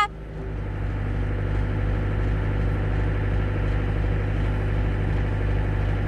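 Excavator diesel engine running steadily, powering the hydraulics as a log-splitter hydraulic cylinder is cycled on a test run.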